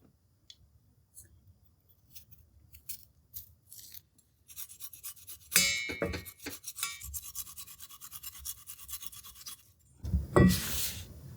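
Charcoal in a hibachi crackling with sparse small pops, then a few seconds of dense, rapid crackling and sizzling from atsuage grilling over the coals, with a sharp knock midway. The crackling stops suddenly, and a loud knock follows near the end.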